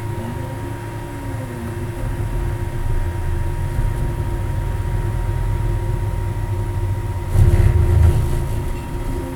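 An UP Box 3D printer running in turbo mode, its stepper motors whining in glides that rise and fall in pitch over a steady low rumble. A louder rumbling burst comes about seven seconds in and lasts about a second. The printer's Y axis is skipping steps.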